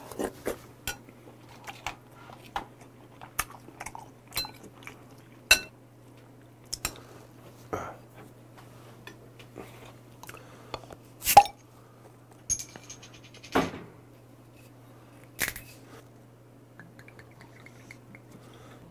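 Metal spoon clinking and scraping against a ceramic bowl during eating, with chewing between scattered sharp clicks, the loudest about eleven seconds in. Near the end, soju is poured from a glass bottle into a shot glass.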